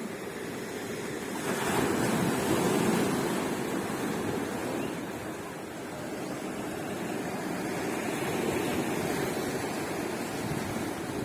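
Sea waves washing onto a beach: a wave breaks and surges about a second and a half in, and another swell rises and falls later on.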